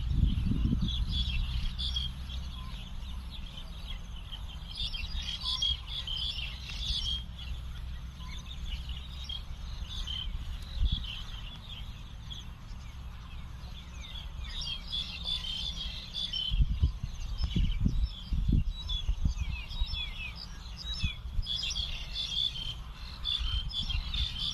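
Many birds chirping together in a steady chorus of short, quick calls. Low, irregular rumbles come near the start and again about two-thirds of the way through.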